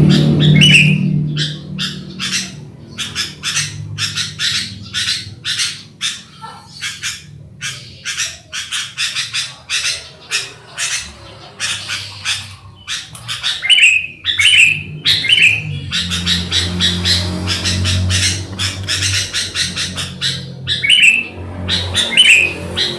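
Sooty-headed bulbuls (kutilang) calling: rapid harsh chattering notes, several a second, broken by a few short whistled phrases, over a low steady hum.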